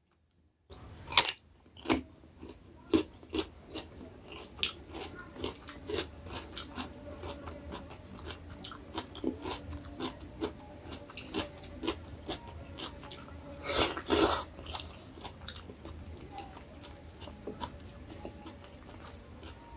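Close-miked chewing and eating mouth sounds: a steady run of small irregular clicks and crunches as food is chewed, with one louder noisy burst about fourteen seconds in.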